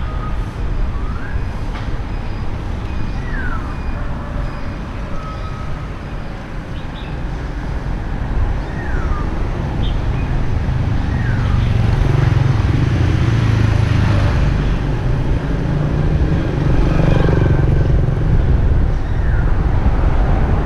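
City street traffic: cars and motorbikes running past in a steady low rumble, which grows louder a little past halfway, with short high chirps now and then.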